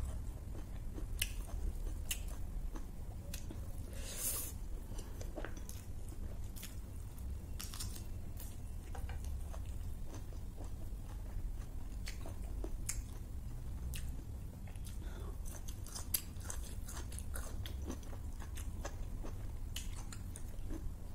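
Close-miked chewing of a mouthful of food: irregular wet mouth clicks and crunchy bites, over a steady low hum.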